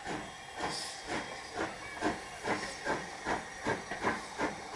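LMS Stanier Black 5 4-6-0 steam locomotive pulling away light engine. Its exhaust beats come about two to two and a half a second and gradually quicken, over a steady hiss of steam, with a brief sharper hiss about a second in.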